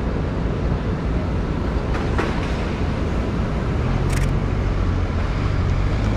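Street traffic: a steady rumble of vehicles, with a nearby engine's low hum growing louder about four seconds in and a short high hiss just after.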